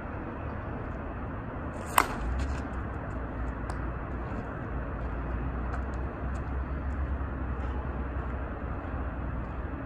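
A slowpitch softball bat, the Monsta Athletics Daisy Cutter, striking a softball once about two seconds in: a single sharp crack with a short ring. A low steady rumble runs under it.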